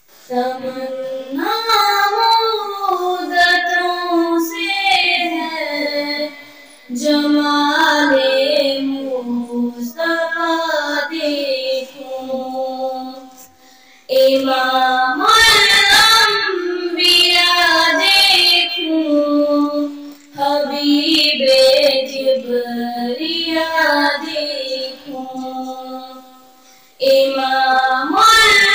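A girl singing an Urdu naat, a devotional poem in praise of the Prophet, unaccompanied, in long melodic phrases with short pauses for breath between them.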